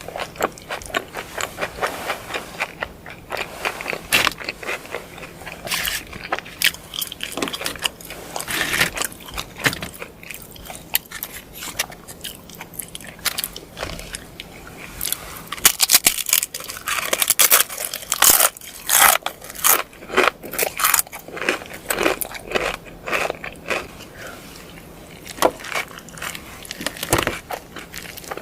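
Close-miked biting and chewing of crunchy food: irregular crisp crunches and crackles, coming thickest about halfway through.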